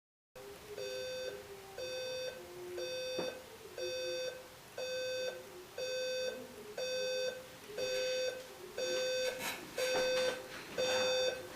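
Electronic alarm clock beeping, one beep about every second, growing gradually louder.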